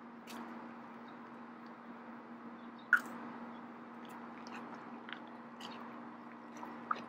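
Scattered faint crunches and clicks of shoes shifting on dry infield clay and gravel, one sharper click about three seconds in, over a steady low hum.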